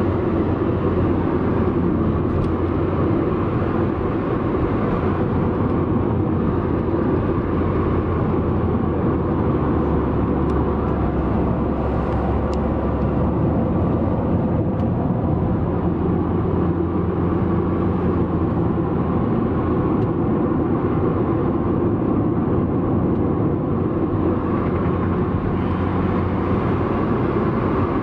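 Steady engine and tyre noise heard inside the cabin of a moving road vehicle, with a low hum beneath it.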